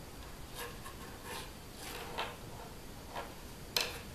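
Soft rubbing and rustling of cotton string being wound by hand around a thin wooden dowel, with a sharper click near the end.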